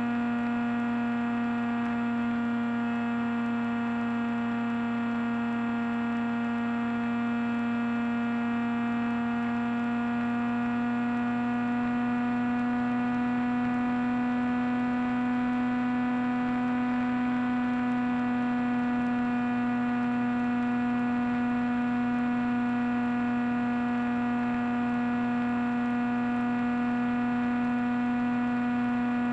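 Electric motor and propeller of an FPV flying wing heard through the onboard microphone: a steady, high droning hum at a constant cruise throttle, the pitch rising slightly partway through.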